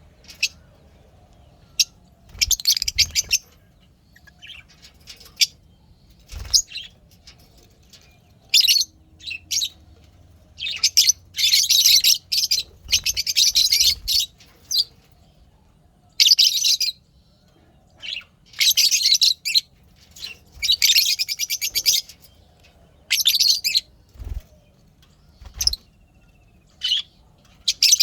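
Lovebirds chirping in repeated bursts of rapid, high-pitched chatter, each burst up to about a second and a half long, with short gaps between.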